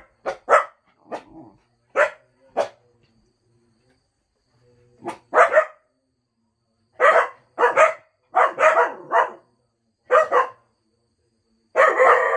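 Cocker spaniels barking in short barks, singly and in quick runs of two or three, with a pause of about two seconds near the middle. A longer, denser run of barks comes near the end.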